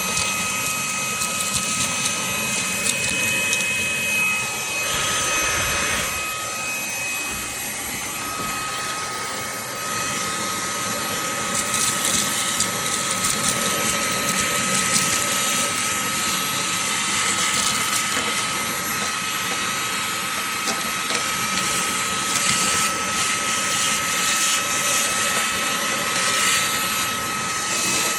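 Cordless handheld vacuum's motor running with a steady high whine over rushing air; the whine wavers and briefly breaks off around five to eight seconds in, then holds steady again.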